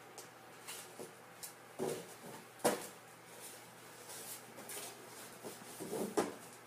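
Cardboard tissue box knocking and scraping on a wooden floor, pushed about by a cat with its head stuck inside it. The sound is a scatter of soft thumps and scrapes, with the sharpest knock a little over two and a half seconds in and another cluster near the end.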